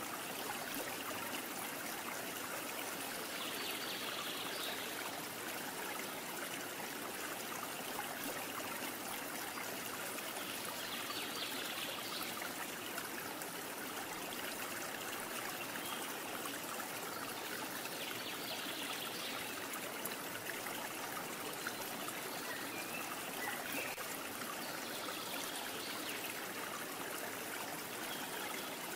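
Steady sound of running water, like a trickling stream, with a brighter hiss swelling for a second or so about every seven to eight seconds.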